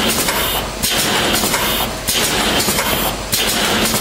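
MKH3 hot-melt gluing machine running in repeated cycles: a loud mechanical clatter that drops off briefly about every 1.2 seconds as the drive slows and stops at its home position between cycles.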